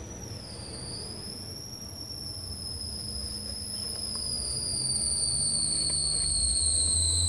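A high-pitched whistling tone that sags in pitch early on and then slides slowly lower, over a low rumble that grows louder near the end.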